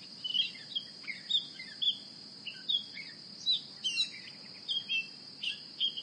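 Birds chirping in many short, quick calls over a steady, high-pitched insect trill.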